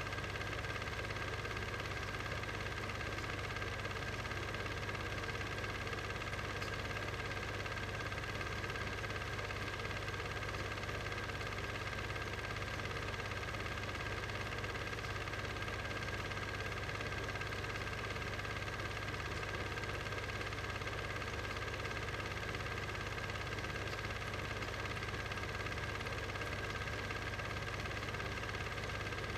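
A steady, unchanging machine-like hum with hiss, without speech or music.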